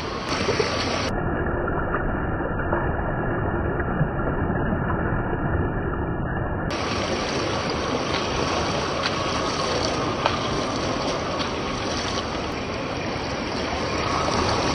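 Running water, a steady rushing hiss, with a few faint clicks over it.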